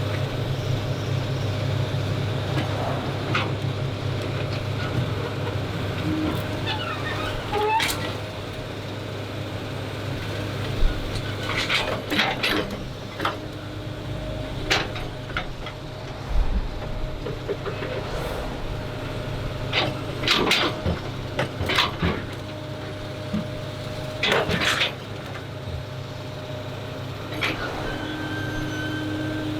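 Doosan excavator's diesel engine running steadily, with scattered sharp clanks and knocks from the bucket and arm as it digs and loads.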